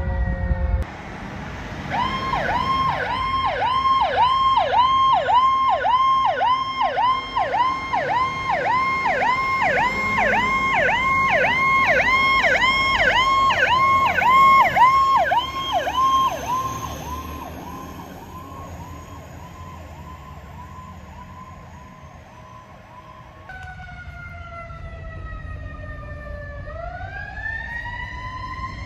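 Fire engine siren sounding a fast yelp, about two and a half sweeps a second. It fades out after about 16 seconds, leaving a faint steady tone. Near the end another emergency siren wails, falling and then rising slowly.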